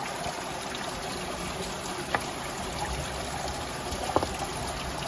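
Shallow stream water trickling steadily while a hand turns over stones under the water, with a few short sharp clicks about two seconds in and again near the end.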